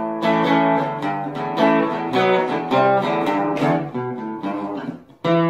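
Acoustic guitar music, with quickly picked notes and strummed chords. Near the end it drops out briefly, then a final chord rings out.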